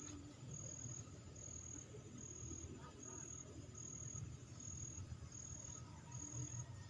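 Insect chirping: an evenly repeating high-pitched trill, a pulse of under half a second a little more than once a second, over a low steady rumble.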